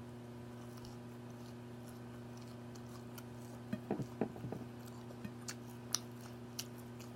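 Close-up mouth sounds of someone eating: quiet chewing, with scattered wet clicks and smacks from about halfway in, over a steady low hum.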